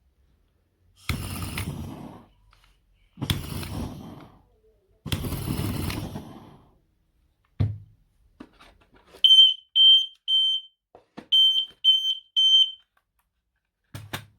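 Sensereo heat alarm sounding two groups of three short, high-pitched beeps with a brief pause between the groups, the temporal-three pattern of a fire alarm. Before the beeps come three separate bursts of noise, each lasting about a second, and a few clicks.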